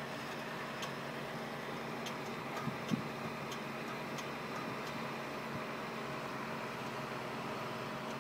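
Komatsu PC200-8 excavator's diesel engine running steadily, with a few faint clicks in the first few seconds and a single knock about three seconds in.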